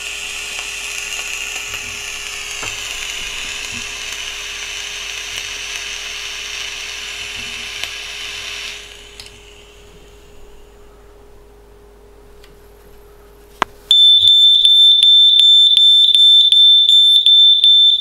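A steady airy hiss for about the first nine seconds, then, about fourteen seconds in, a Gafild photoelectric smoke alarm goes off with a loud, shrill beep pulsing about three times a second. It has detected the vapour blown into its smoke chamber, a sign that the detector works.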